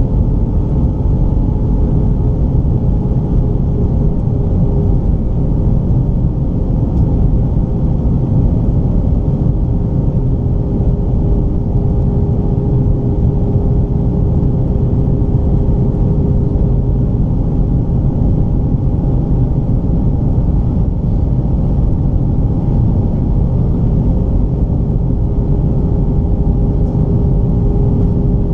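Steady cabin noise inside an Airbus A319 on approach: a loud, even rumble of the engines and airflow, with a few steady hums riding on it.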